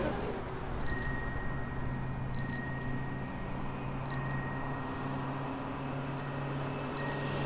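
A bicycle bell rung about five times, mostly as quick double dings, every second and a half or so, each ring short and high. A low steady hum runs underneath.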